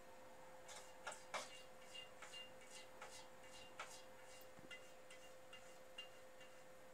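A cat's paw and claws tapping and scraping on the glass screen of a CRT television: a dozen or so light, irregular clicks, some with a brief high ring, the loudest about a second and a half in. A faint steady hum runs underneath.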